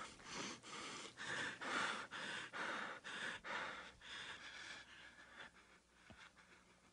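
A man's rapid, heavy breathing, about three breaths a second, fading away over the last couple of seconds.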